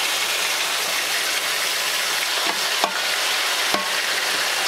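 Marinated pork chops frying in hot oil in a deep pot: a steady sizzling hiss, with a few brief clicks as metal tongs lay another chop in.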